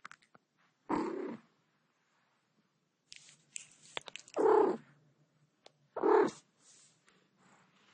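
Tabby cat purring in three loud surges, with soft wet licking clicks between them as it washes its face.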